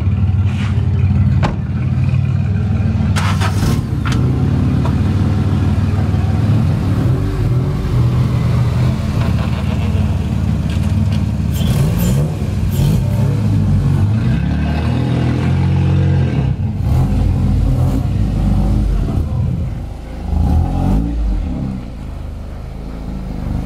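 Car engine running at low speed with a deep, steady exhaust drone and a few brief rises in pitch from light throttle; the exhaust is leaking at a flange, the leak that is being brought in for repair.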